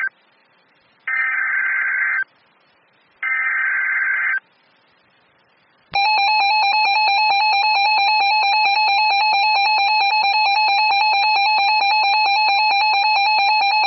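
NOAA Weather Radio Emergency Alert System signal: two short raspy SAME data-header bursts about a second long, a second apart, then about six seconds in a loud steady warning alarm tone begins and holds. It announces a newly issued tornado warning.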